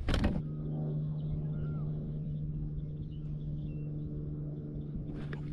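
A short knock, then a motor humming steadily at one low pitch, with a few faint bird chirps over it.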